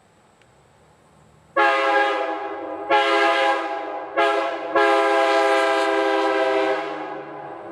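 Multi-chime locomotive air horn blown in four blasts: long, long, short, then a longer final blast that trails off near the end. The pattern is the long-long-short-long grade-crossing signal.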